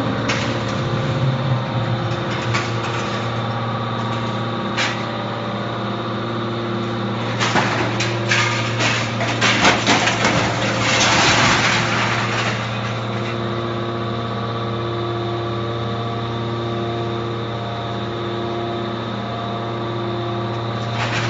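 Y81F-4000 hydraulic scrap-metal baler running: a steady hum from its motor and hydraulic pump, with scattered metal knocks and a louder spell of clattering and hissing about halfway through.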